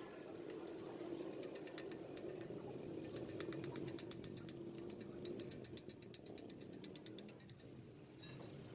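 Faint metallic clicking from hand work on small engine parts during piston fitting: a quick run of light ticks, several a second, in the middle, and two more near the end, over a steady low hum.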